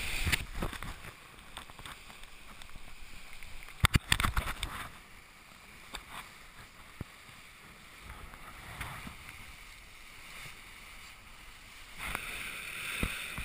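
Water rushing and splashing along the hull of a Melges 24 sailboat driving through choppy waves. A sudden loud burst of splashing comes about four seconds in, and the rush grows louder again near the end.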